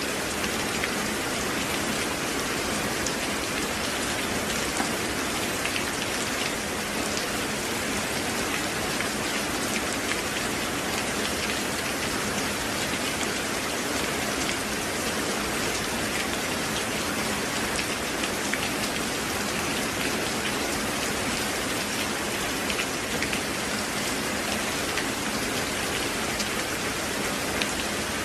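Rain falling steadily: an even hiss with many small drop taps on a surface.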